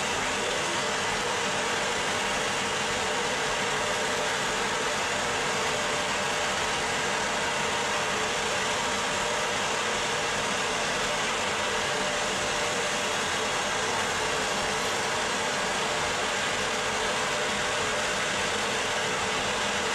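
Steady, even hiss of an oil-fired steam locomotive standing at a station, with no rhythm of wheels on rail.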